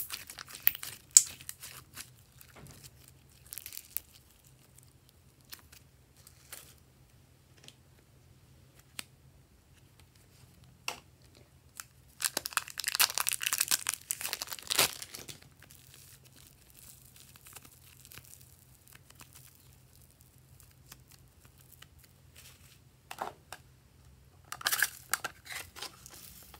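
Clear plastic piping bags crinkling and crackling as slime is squeezed and pushed out of them by hand. There are three spells of dense crackling: near the start, in the middle, and near the end. Scattered small clicks and rustles fall between them.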